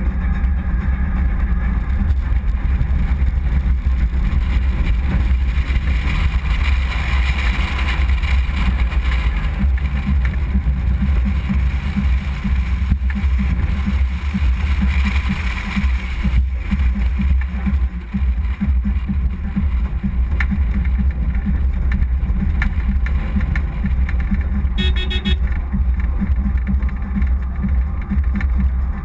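Steady low rumble of a 4x4 driving over desert sand, heard from a camera mounted on its bonnet, with engine and wind noise. There is more hiss in the middle stretch while the vehicle climbs a dune, and a short car horn toot comes near the end.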